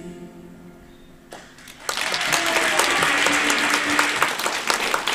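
The last notes of a song die away, then a small audience breaks into applause about two seconds in. The clapping keeps on steadily, with a voice heard over it.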